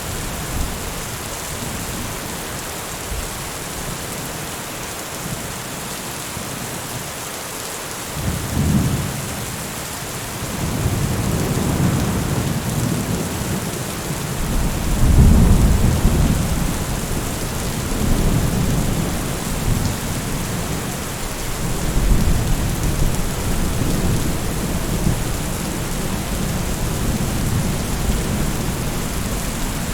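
Steady heavy rain hiss with thunder rolling in: a short low rumble about a third of the way in, then a longer, louder roll near the middle, with further rumbles trailing on over the rain.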